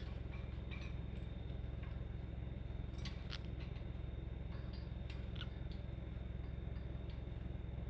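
A steady low hum with a few faint, sharp clicks scattered through it, the clearest about three and five seconds in.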